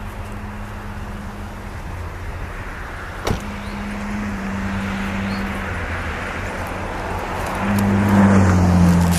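Distant diesel locomotive engine running, its low hum stepping up and down in pitch as the throttle changes while switching. A sharp knock about three seconds in, and near the end a road vehicle passes, louder with a falling pitch.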